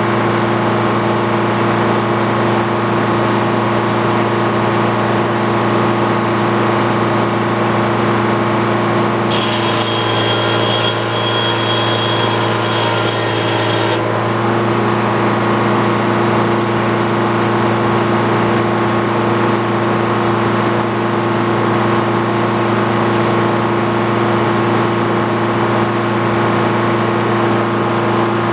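A motor or engine running steadily at one constant speed, with a higher hiss and thin whine joining in for about five seconds partway through.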